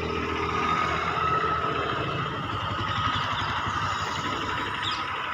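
Engine running steadily at idle: a low hum with a steady high whine above it.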